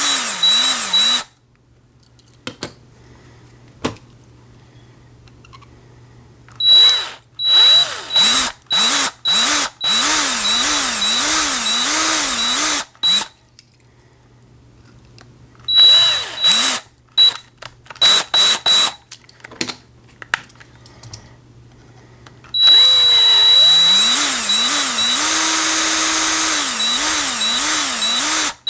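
Small power drill drilling the heads off the rivets on a die-cast toy car's base. It comes in short trigger bursts and longer runs of a few seconds, its motor speed wavering up and down, with quiet pauses between.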